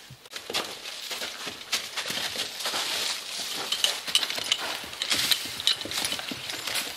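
Metal fittings of a draft-horse team's harness clinking and jingling irregularly as the horses move, mixed with the crunch of their hooves on snow and wood chips.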